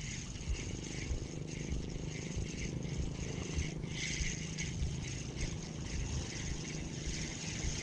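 Spinning reel being cranked to retrieve line, a steady low whir of the gears that starts about half a second in and holds nearly to the end.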